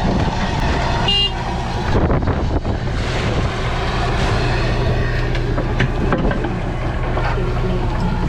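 A crab fishing boat's engine and deck machinery running steadily with a low hum and scattered knocks, plus a short high-pitched tone about a second in.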